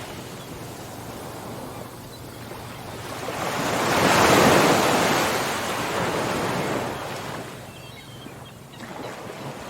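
Ocean waves washing ashore: one wave surges up a few seconds in, breaks loudest around the middle, then drains away.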